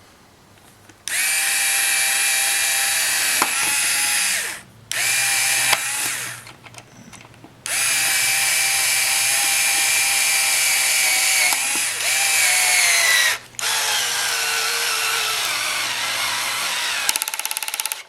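Hitachi DB3DL 3.6 V cordless screwdriver's motor and gearbox whining in four bursts as it drives a Tapcon screw. The pitch sags under load in the later runs, and a rapid clicking comes near the end.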